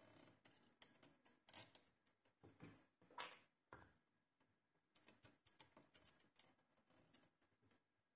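Near silence with faint scattered clicks and scrapes of hands handling a cable-operated disc brake caliper while fitting it to the scooter's rear brake mount.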